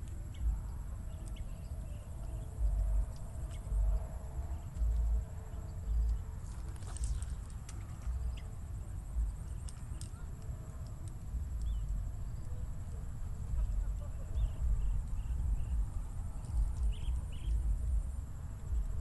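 Outdoor ambience: wind gusting on the microphone in repeated low rumbles, over a steady high-pitched buzz and scattered faint bird chirps.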